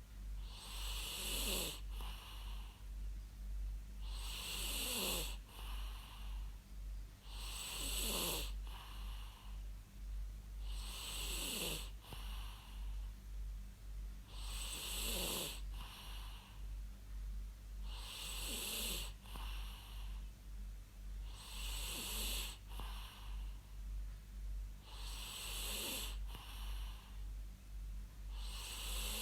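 A person snoring in a slow, even rhythm, about one snore every three and a half seconds, each with a pitch that falls as it goes. A steady low hum runs underneath.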